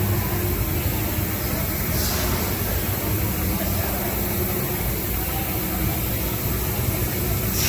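Steady background din of a busy, crowded area: faint indistinct voices over a constant low hum.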